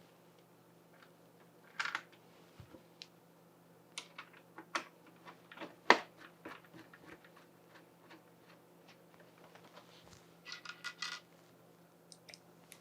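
Scattered light clicks and taps of wooden PC case parts, a clear plexi panel and small steel blocks being handled and fitted, with one sharper knock about six seconds in and a short clatter of ringing metal clinks near eleven seconds.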